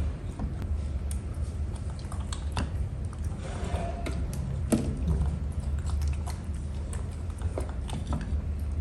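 A monkey chewing and biting grapes: a run of short, irregular wet clicks and smacks over a steady low hum.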